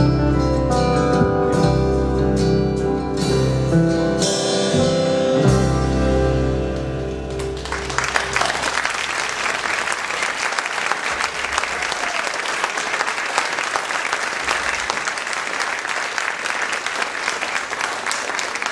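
A live band with guitar plays the closing bars of a song, ending about a third of the way in; an audience then applauds steadily.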